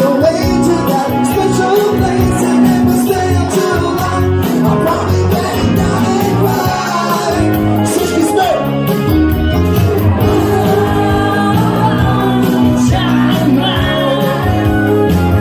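Live band music: a singer's voice over electric guitar and band accompaniment, loud and continuous.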